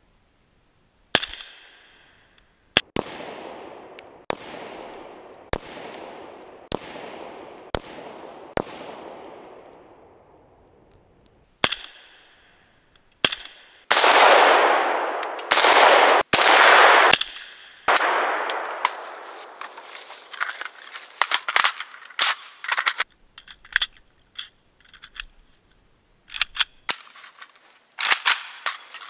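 Arsenal SLR-104FR, a Bulgarian semi-automatic AK-74-pattern rifle in 5.45x39mm, firing a long string of shots. Each crack trails off in echo. It starts with single shots about a second apart, then comes a quicker, louder run of shots in the middle, and scattered shots near the end.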